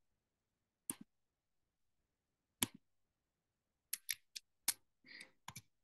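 Sharp, separate clicks of a computer mouse: one about a second in, another near three seconds, then a quick run of five or six clicks and short scrapes in the second half.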